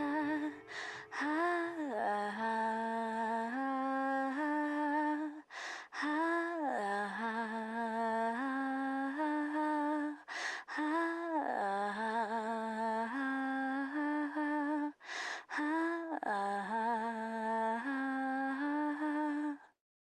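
A single voice humming a slow, wordless melody in held, stepwise notes, with short breaks every few seconds. It cuts off abruptly near the end.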